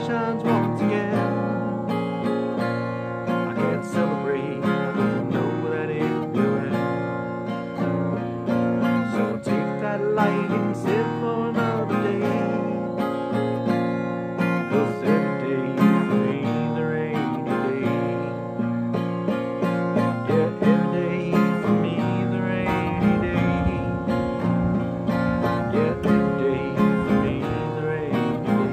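Fender Sonoran acoustic guitar strummed steadily through the chords of a slow, sad country song.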